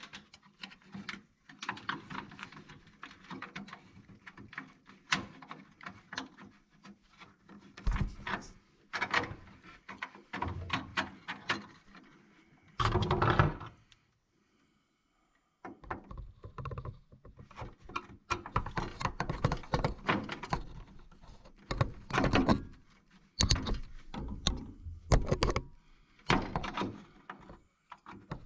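Irregular clicks, knocks and rustling from hands handling small parts and tools while working behind a car's metal dashboard, broken by a short silent gap about halfway through.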